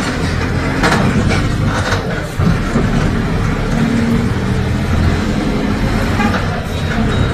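Diesel engine of a Mercedes-Benz OF 1721 BlueTec 5 city bus with a Caio Apache Vip IV body, running steadily, with short knocks and rattles now and then.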